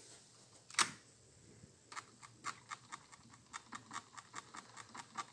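Thermostat buttons being pressed to switch the system over to heat: a single click, then a steady run of quick taps about four a second.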